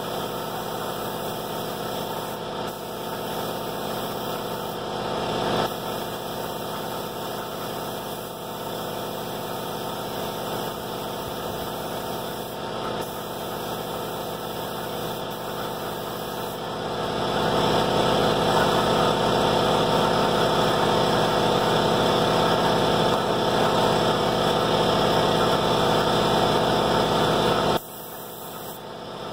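Air compressor running steadily, feeding the spray gun's air hose. It gets louder and fuller about two-thirds of the way through, then drops sharply for a moment near the end.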